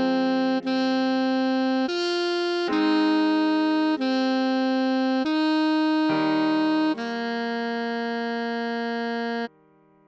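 Alto saxophone melody played slowly at half speed, about eight steady held notes in a row over sustained keyboard chords. The last note is held for about two and a half seconds, then the music stops sharply for a rest.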